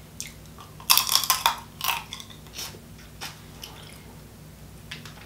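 Eating crab legs by hand: a run of crackling clicks about a second in as the shell is worked apart, then softer, scattered wet chewing sounds.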